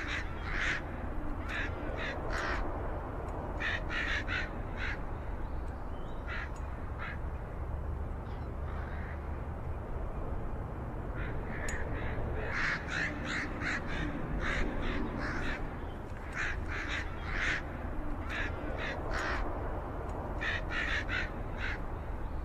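Crows cawing repeatedly, in short runs of several calls at a time, over a steady low rumble.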